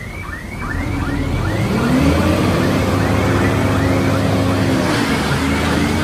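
Heavy earthmoving machine's diesel engine revving up about a second and a half in, holding under load, then easing back near the end, with a short rising squeak repeating about two to three times a second throughout.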